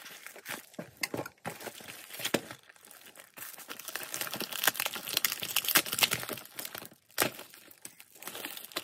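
Mailed parcel being opened by hand: irregular crinkling and tearing of its packaging, busiest from about three and a half seconds in until about seven seconds in.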